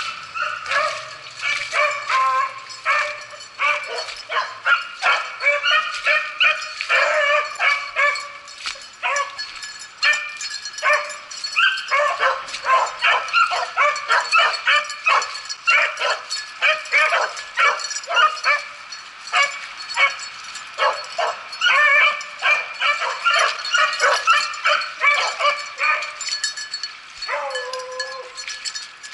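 A pack of beagles baying almost without pause, several voices overlapping: hounds giving tongue on a rabbit's trail. One longer, lower drawn-out note comes near the end.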